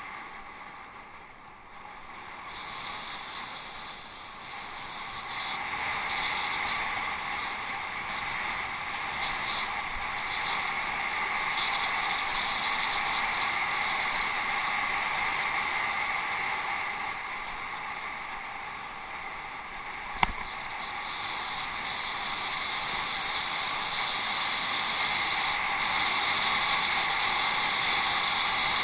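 Riding noise of a bicycle on an off-road trail: a steady rush that swells and fades as the ride goes on, with one sharp knock about twenty seconds in.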